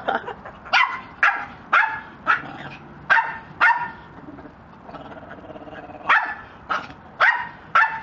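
Repeated short, sharp barks, about two a second, pausing for a couple of seconds in the middle where a lower, drawn-out whine sits before the barking resumes.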